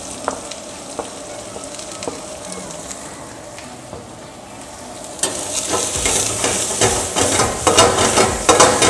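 Sliced onions sizzling in hot oil in a steel kadai. About five seconds in, a steel ladle starts stirring them, and the sound grows loud with rapid scraping and clattering of ladle on pan over the sizzle.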